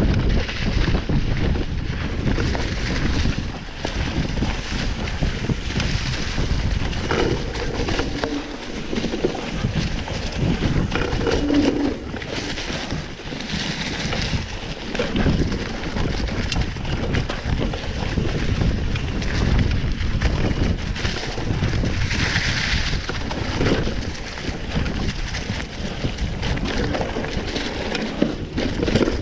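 Wind buffeting the microphone of a moving camera, a steady rushing noise with irregular knocks and rattles from jolts over rough ground.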